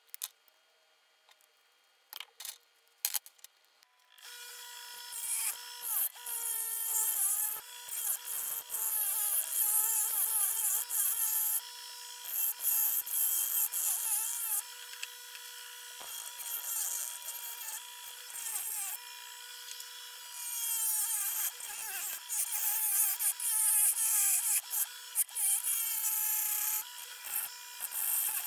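A few light clicks, then from about four seconds in a Draper bench grinder running, with a hum and a hissing grind that comes and goes as a small metal part with a ball stud, held in pliers, is pressed against the grinding wheel. The hum dips in pitch now and then under the load.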